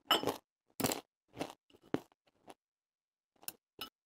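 Eating sounds close to the microphone: crunching on crisp batter-fried cod and chopsticks against a ceramic rice bowl, in short separate bursts, with two quick clicks near the end.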